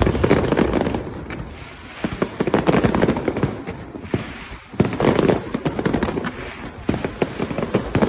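Aerial fireworks bursting one after another: deep booms of shells mixed with dense crackling, with a strong bang right at the start and thick clusters of bursts again in the middle.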